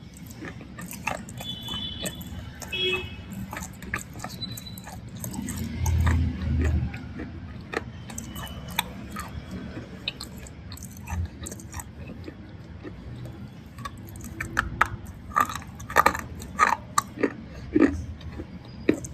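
Close-up biting and chewing of a thick black slate bar, with sharp crunches and clicks at irregular intervals. A dull, low chewing thud comes about six seconds in, and a dense run of loud crunches fills the last few seconds.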